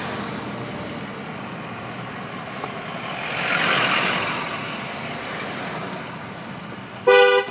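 Steady road and engine noise inside a car's cabin, swelling for a second or so about three and a half seconds in as an oncoming vehicle goes by. Near the end the car's horn sounds one short blast, the warning the signs ask drivers to give before a one-lane tunnel.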